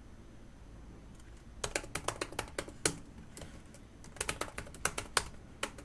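Computer keyboard typing in two quick runs of keystrokes, the first starting about a second and a half in and the second about four seconds in, with a short pause between.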